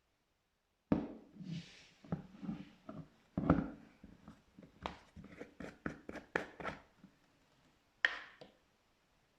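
Slime being squished and pressed, giving a quick run of wet clicks and pops from about a second in, then one more squelch near the end.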